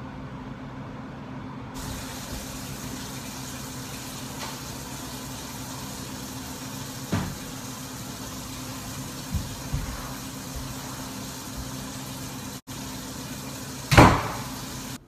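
A steady low hum with hiss throughout, a few light knocks past the middle, and one loud thump near the end.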